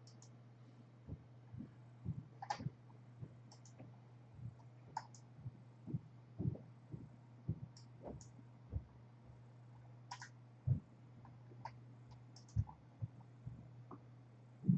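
Computer mouse and keyboard clicking: scattered, irregular faint clicks and soft knocks over a steady low electrical hum.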